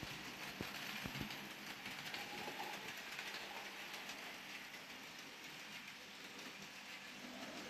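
N gauge model train running on the track: a faint steady whirring, with a few light clicks about a second in.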